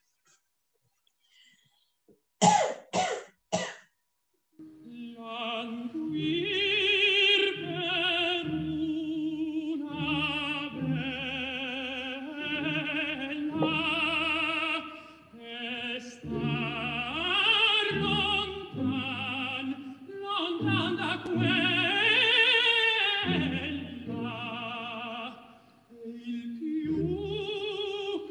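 A few sharp clicks, then a man singing opera with a strong vibrato, played back from a video of a staged opera performance.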